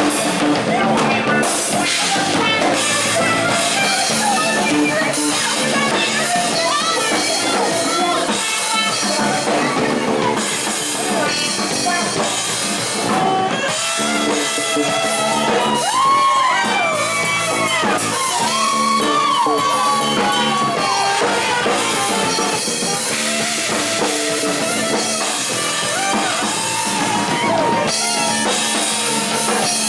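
Live band playing an instrumental passage with drum kit and guitar; a bending lead melody stands out through the middle.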